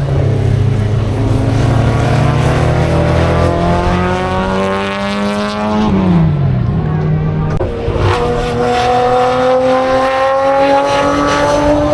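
Racing car engine at full throttle, its pitch climbing steadily. About six seconds in the pitch drops sharply, then it climbs again.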